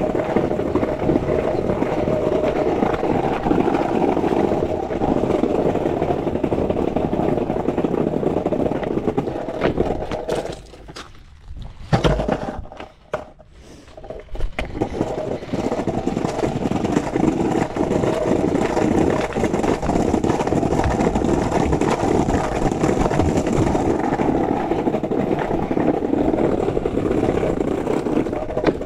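Skateboard wheels rolling over stone pavers with a steady rumble. About ten seconds in the rolling stops for a few seconds, with a single knock, then picks up again.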